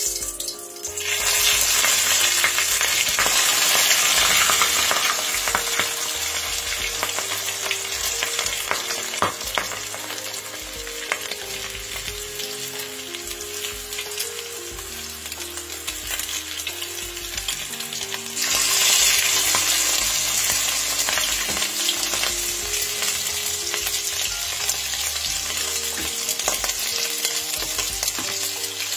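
Marinated snapper steaks sizzling and spitting in hot oil in a stainless steel pot. The frying flares up loudly about a second in as the fish goes into the oil, eases, then surges again after about eighteen seconds.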